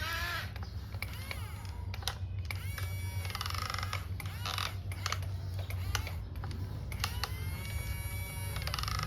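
Small electric motor of a toy construction vehicle humming steadily, with clicks and a few gliding, pitched electronic tones over it.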